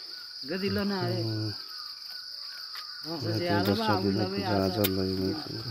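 Steady high buzz of crickets or similar insects, with two long, wavering, pitched calls over it: one about half a second in and a longer one starting about three seconds in.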